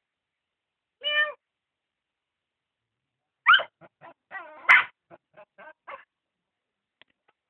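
A dog and a cat squabbling. There is one short pitched cry about a second in, then from about three and a half seconds a quick run of sharp yelps and cries, about five a second, with two loud peaks.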